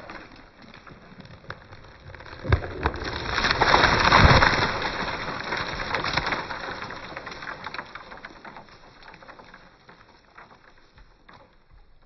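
A tree coming down: a sharp crack, then a swelling rush of breaking and swishing branches that peaks with the crash onto the ground and fades away over several seconds.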